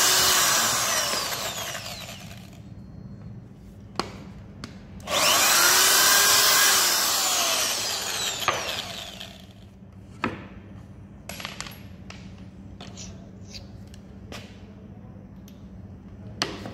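Corded electric drill boring a countersink for a screw head into a laminated wood panel. It runs twice, a few seconds each time, its motor winding down after each run. Scattered short knocks and taps follow in the second half.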